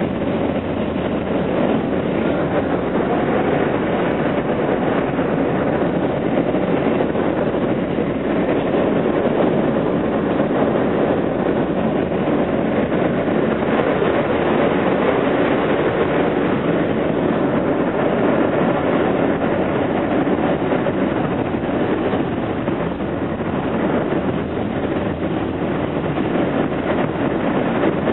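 R160B Siemens subway car running at speed on elevated track, heard from inside the car: a steady rumble of wheels on rail and running gear.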